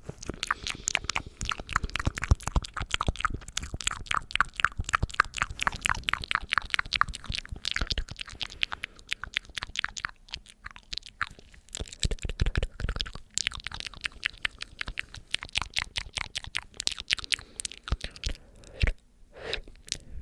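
ASMR mouth sounds: a fast run of sharp clicks, several a second, thinning out in the second half.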